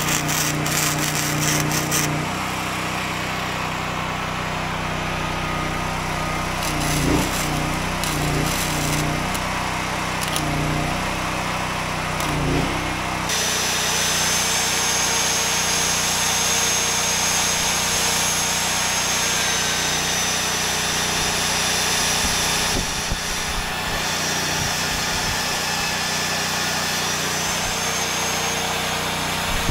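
Electric arc welding crackles for the first couple of seconds. Then a magnetic drill runs, its cutter boring into the steel plate, with a steady high motor whine from about halfway through.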